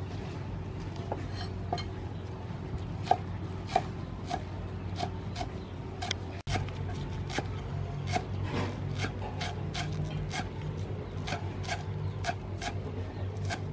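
Cleaver chopping spring onions on a thick round wooden chopping board: short, even knocks of the blade on the wood, about two a second, over a steady low hum.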